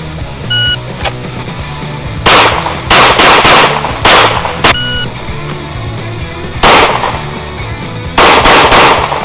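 Gunfire at a shooting range: about nine loud shots in quick groups of two to four, over a rock music bed. Two short high beeps sound, one near the start and one in the middle.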